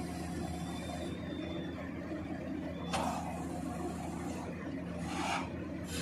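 Giken hydraulic press-in sheet piler at work: a steady low machine hum from its hydraulic drive, with two short hissing rushes, about three and five seconds in.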